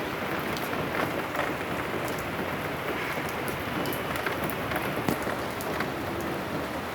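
Heavy rain falling steadily, with a few sharper drop hits scattered through the steady hiss.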